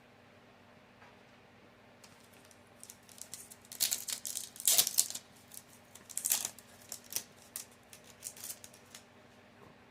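Foil trading-card booster packs and cards being handled: a run of irregular crinkling and rustling starting about three seconds in, loudest near the middle and tailing off near the end.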